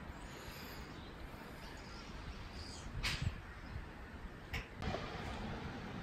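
Small handling sounds of a carburettor being fitted back onto a two-stroke outboard motor: two short sharp clicks, about three seconds in and a second and a half later, and a soft knock, over a faint steady background.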